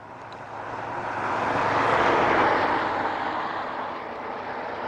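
A passing road vehicle's engine and tyre noise, swelling to a peak about two seconds in and then fading away.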